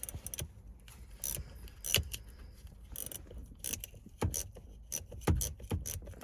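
Irregular metallic clicks and clinks of a reversible ratcheting wrench working a 13 mm bolt on a TR6060 shifter, with a couple of louder knocks about two seconds in and past the five-second mark.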